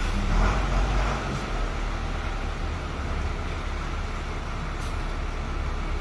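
Street traffic on a rain-soaked road: a steady low engine rumble with the hiss of tyres on wet pavement, swelling a little in the first second as a vehicle goes by.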